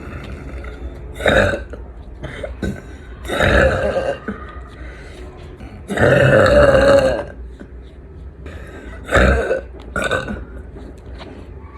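A young woman burping loudly, about four times, the longest and loudest burp lasting about a second, roughly six seconds in.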